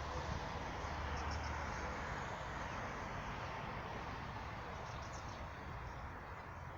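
A few faint, short bird chirps, about a second in and again around five seconds, over a steady background noise with a low hum.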